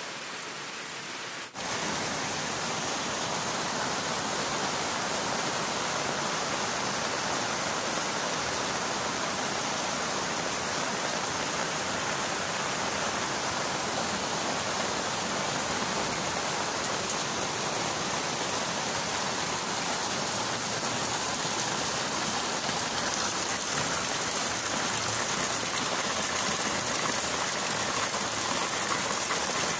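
Heavy rain falling steadily, an even hiss of drops on leaves and a wet concrete path, which jumps louder about a second and a half in. Near the end, a stream of rainwater splashes into a water-filled plastic drum.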